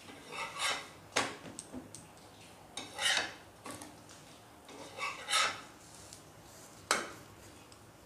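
Grey spatula scraping across a flat griddle pan (tawa) as it loosens and lifts a chickpea-flour pancake (besan chila) off the surface: a series of short, separate scrapes, the loudest about three and five seconds in.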